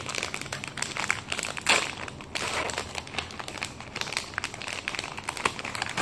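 Plastic ice cream wrapper crinkling and tearing as it is pulled open by hand, with a louder rip about two seconds in.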